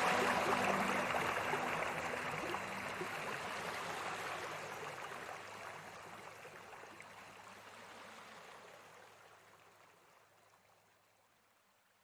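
River water flowing with an even rush, fading out gradually to silence by the end. Sustained calm music notes trail off about a second in.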